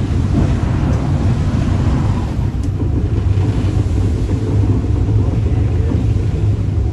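Sydney P-class crossbench tram 1497 running along the track, heard from inside its open-sided compartment: a steady low rumble.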